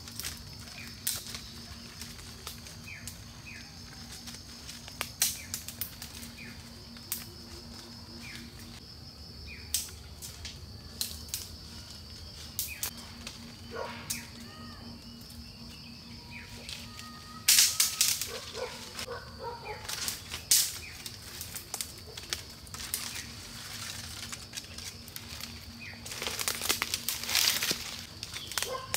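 Scattered clicks, taps and bursts of rustling from hands-on work, loudest about two thirds of the way in and again near the end, over a steady high-pitched drone.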